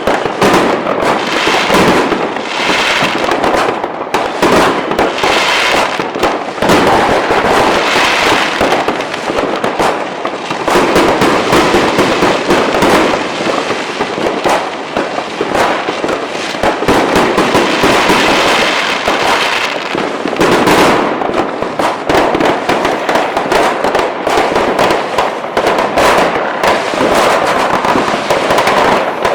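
Fireworks going off in a dense, continuous barrage: many bangs and crackles overlapping without a break.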